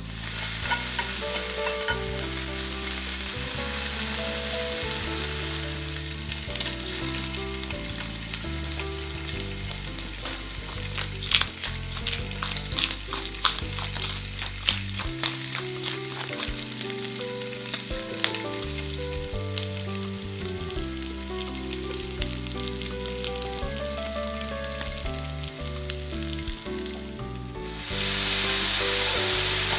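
Diced bacon sizzling steadily in a nonstick frying pan, with a run of sharp crackles and clicks about midway. Near the end the sizzle grows suddenly louder as wet, cooked linguine goes into the hot pan.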